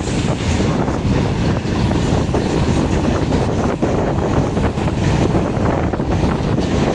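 Passing train at close range: a loud, steady rumble of wheels on rails with irregular clicks, and wind buffeting the microphone.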